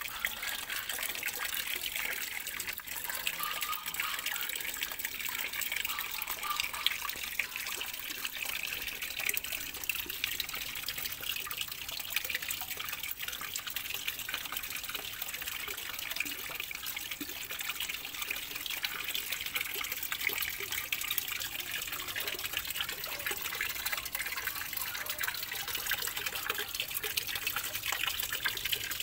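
Water pouring and splashing steadily into a small garden pond, an unbroken hiss of falling water.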